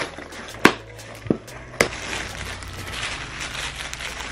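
A cardboard shipping box being opened by hand, with three sharp snaps as its flaps are pulled apart. From about halfway, a plastic mailer bag crinkles and rustles as it is lifted out and handled.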